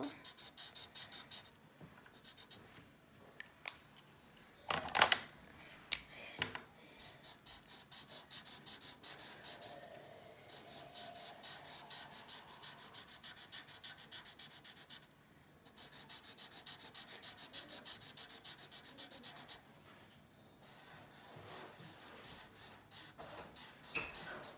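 A Sharpie permanent marker scribbling over paper in fast back-and-forth strokes, several a second, as an area is coloured in; the marker is running low on ink. A few louder knocks come in about four to seven seconds in.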